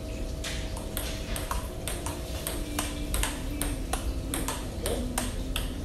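Table tennis rally: the plastic ball clicking off the paddles and the table in quick alternation, about three or four clicks a second, starting about half a second in.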